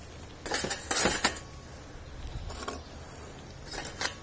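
Metal tongs clinking as hot charcoal coals are picked from a chimney starter and dropped under a cast iron camp Dutch oven, in three short clattering bursts, the first and loudest about half a second in.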